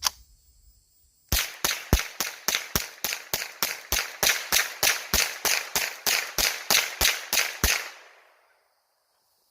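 Rossi semi-automatic .22 rifle fired rapidly: about twenty shots at roughly three a second, then the firing stops.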